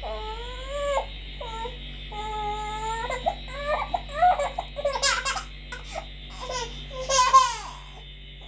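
A small child whining and fussing in short, high, sliding cries that build into two louder wails about five and seven seconds in, over a steady background hum.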